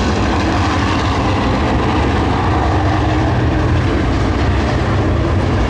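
A pack of UMP dirt Modified race cars with V8 engines, running together in a steady, loud rumble.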